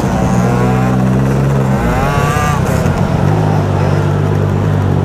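Motorcycle engines running at low speed in a dense group ride, with a steady drone; about two seconds in one engine revs briefly with a rising pitch, then the steady running resumes.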